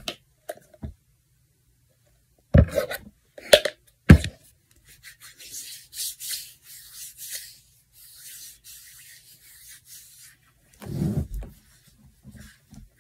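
Hands rubbing, a soft rasping rub lasting several seconds. It comes after three thumps in quick succession, and another thump follows near the end.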